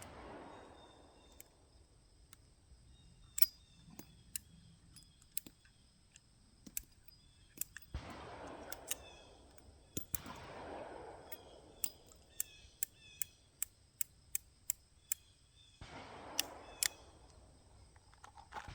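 Single action revolver being unloaded by hand: a long, irregular run of light clicks as the cylinder is turned through its loading gate and spent cases are pushed out, with a few stretches of soft rustling.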